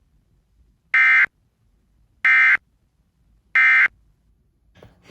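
Emergency Alert System end-of-message tones: three short, shrill bursts of SAME digital data, each about a third of a second long and a little over a second apart, marking the end of the alert.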